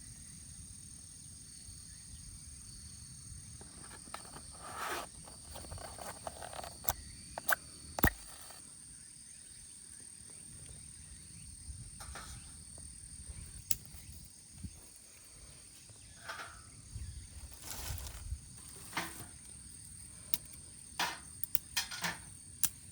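Small wood fire in a camping fire pit, with scattered sharp pops and crackles and a few short rustles. A steady high-pitched insect chorus runs underneath.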